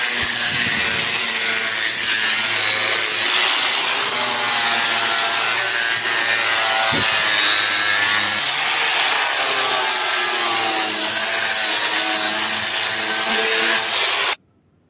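Electric angle grinder sanding the face of a plywood door, its motor whine wavering up and down as the disc is pressed into the wood and moved across it. It cuts off suddenly near the end.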